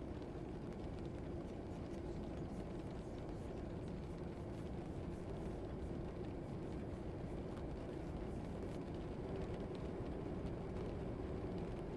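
Classroom ambience track: a steady, unchanging low rumble of background noise with no distinct events.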